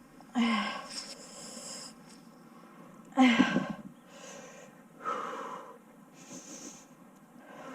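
A person's heavy breaths: three loud huffs or puffs about two seconds apart, the middle one the loudest, with a grunt in it.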